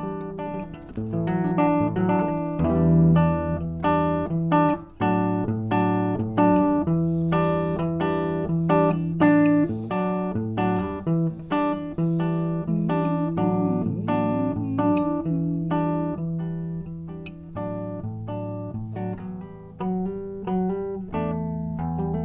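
Solo archtop hollow-body guitar playing an instrumental passage: a steady stream of plucked single notes and chords.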